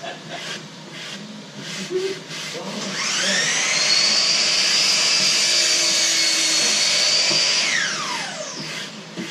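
An electric power-tool motor spins up with a rising whine about three seconds in, runs steadily for about five seconds, then winds down with a falling whine. A few light knocks come before it.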